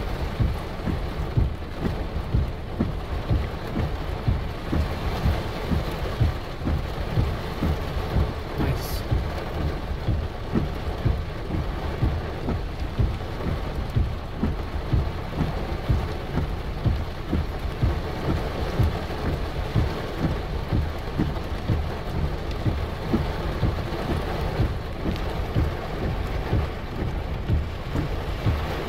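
Heavy rain pelting a vehicle's windshield and body, a dense steady wash with a deep low rumble of thunder underneath.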